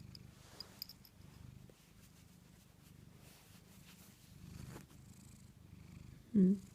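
Cat purring steadily, a low pulsing rumble. Near the end comes one short, louder voiced sound.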